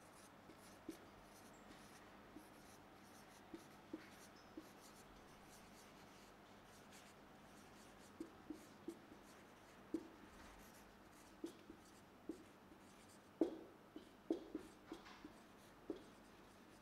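Marker pen writing on a whiteboard: faint, irregular taps and short strokes as the letters are drawn, with brief pauses between them.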